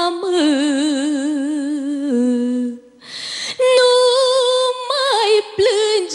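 A woman singing a Romanian folk lament, drawing out long wordless held notes with strong vibrato that step down in pitch. She breaks off for a breath about three seconds in, then takes up a higher held note that wavers back down.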